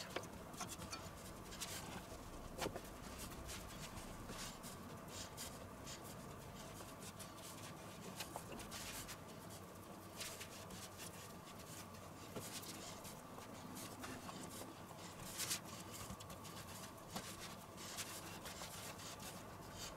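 Faint rubbing and light scattered taps of hands pressing and stretching pizza dough on a floured wooden cutting board, over a faint steady hum.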